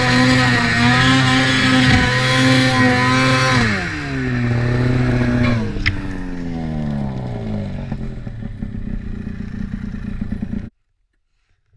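Mountain snowmobile engine running at high revs as it climbs through deep snow. The revs drop about four seconds in, there is a sharp knock around six seconds as the sled goes over, and then the engine winds down to a low rumble. The sound cuts off suddenly near the end.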